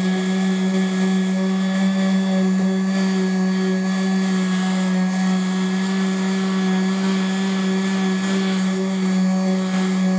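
Corded electric orbital sander running at steady speed with a constant motor whine, its pad pressed against textured, painted drywall to grind the texture back to the paper around a patch hole.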